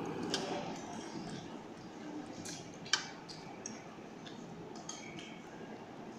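Light, scattered clinks of a metal fork against a dish while eating, with one sharper clink about three seconds in.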